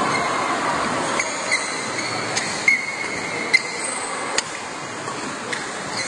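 Badminton rally: a series of sharp racket strikes on the shuttlecock, roughly one a second, with high squeaks of players' shoes on the court mat, over a steady murmur of spectators in the hall.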